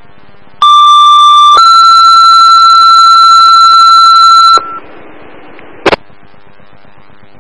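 Two-tone sequential paging alert on a fire dispatch radio channel, heard through a scanner: a steady tone of about one second steps straight up to a slightly higher tone held for about three seconds, the signal that sets off responders' pagers. A short click of the radio unkeying comes about a second later, over steady radio hiss.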